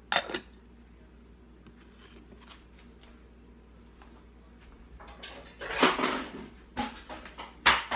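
Serving spoon scooping rice and knocking against dishes: a sharp clink at the start, then, after a quiet stretch, a couple of seconds of scraping and clatter ending in a sharp knock.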